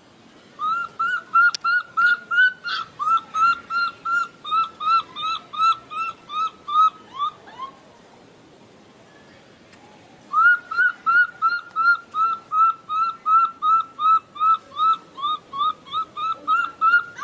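Infant macaque giving its high, whistle-like distress call: short hooked squeaks, rising then dropping, at about three a second. There are two long runs, with a pause of about two and a half seconds in the middle. This is the crying of a frightened baby monkey.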